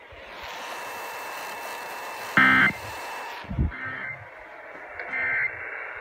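Weather alert radio hissing with static after the broadcast ends. About two and a half seconds in, a loud electronic beep sounds, followed by a low thump, and two shorter, quieter beeps come near the end.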